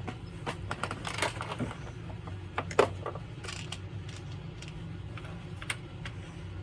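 Scattered light clicks and knocks from a Lee Load-All II shotshell reloading press and a 12-gauge hull being handled, with one sharper click about three seconds in, over a low steady hum.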